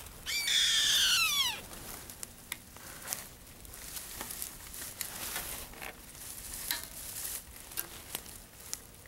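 A bird's cry: one loud call falling steeply in pitch over about a second. Faint rustling and scattered clicks follow.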